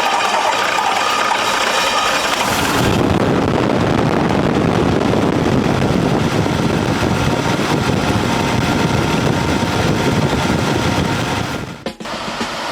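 Rebuilt Land Rover Range Rover engine running after start-up. The sound grows fuller and deeper about two and a half seconds in, then cuts off abruptly near the end.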